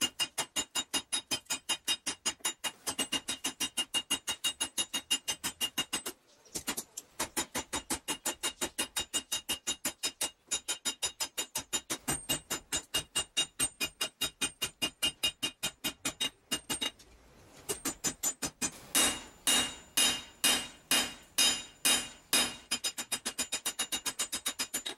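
Hand-hammer blows on red-hot steel over an anvil while forging a knife blank, fast and regular at about three to four strikes a second, each with a high metallic ring from the anvil. Two short pauses, then louder, slower blows about two a second near the end.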